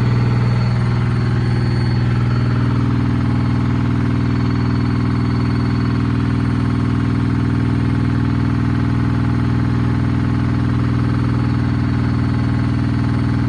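Sharp ES-FB7145W washing machine running with a loud, steady droning hum, a noise its owner calls horrible.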